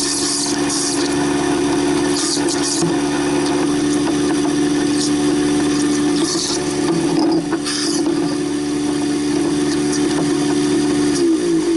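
Waste King 1-horsepower garbage disposal running with a steady motor hum while grinding lamb shank bone, with short bursts of clatter from bone pieces in the chamber. Near the end it is switched off and the hum drops in pitch as the motor spins down.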